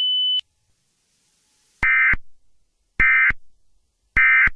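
A steady high tone stops abruptly about half a second in. After a gap come three identical short bursts of buzzy Emergency Alert System SAME data tones, about a second apart: the end-of-message code that closes an EAS alert.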